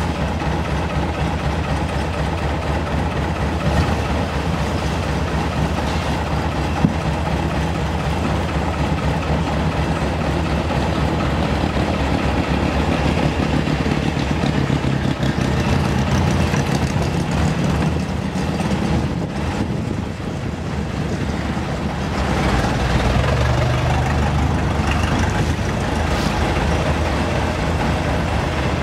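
Long boat's engine running steadily under way, a continuous low drone. It eases slightly and then picks up again about three-quarters of the way through.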